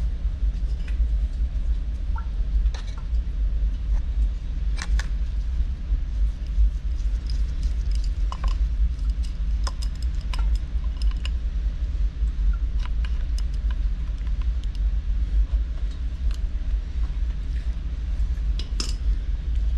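A steady low rumble throughout, with scattered metallic clicks and taps from the parts of a backflow preventer's relief valve being handled during a rebuild.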